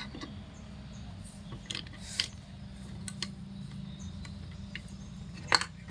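A few sharp metallic clicks and knocks as transmission gear shafts and parts are fitted into a motorcycle engine's crankcase, the loudest near the end, over a steady low hum.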